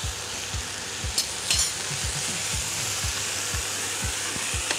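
Chicken breasts sizzling as they fry in a frying pan while being turned with metal tongs, which click against the pan twice a little over a second in. A low thud repeats about twice a second underneath.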